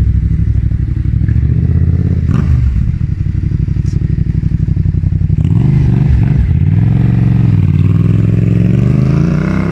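Yamaha Tracer 700's 689 cc parallel-twin engine running through a Mivv Speed Edge exhaust: a steady idle for about five seconds, then a few short blips of the throttle, then revving up with a rising pitch near the end.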